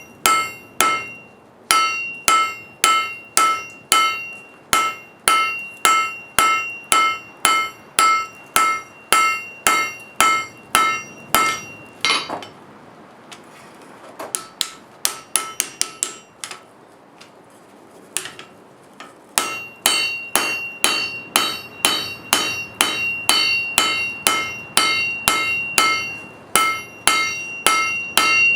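A forging hammer striking hot steel on an anvil in steady blows about two a second, each blow followed by the anvil's ringing. About halfway through there is a pause of several seconds with only a few lighter taps, and then the hammering resumes, faster.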